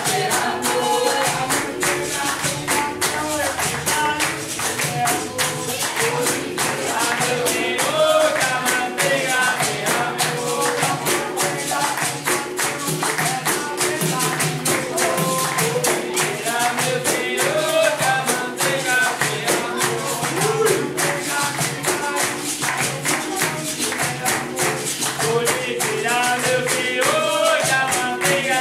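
Capoeira roda music: voices singing over a steady pandeiro and hand-percussion rhythm.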